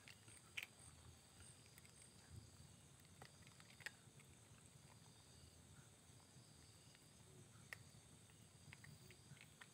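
Cat eating dry kibble: faint, scattered crunches over near silence.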